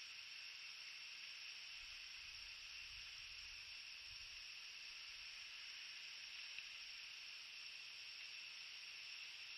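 Faint, steady high-pitched hiss of a night insect chorus, with a soft low rumble from about two to four and a half seconds in.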